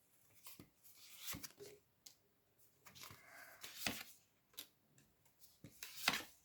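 Tarot cards being handled: faint swishes and soft snaps of cards being shuffled and drawn, with three louder card swishes about a second, four seconds and six seconds in.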